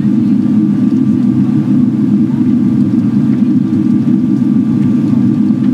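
Steady cabin noise inside a Boeing 777-300ER in flight: a constant low rumble of airflow and engine noise, with a faint steady whine above it.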